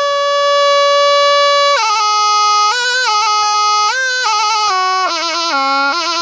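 Solo pi, a Thai reed oboe, playing with a buzzy, reedy tone: one long held note for about the first two seconds, then a melody of short notes that steps downward, with quick shakes ornamenting the notes near the end.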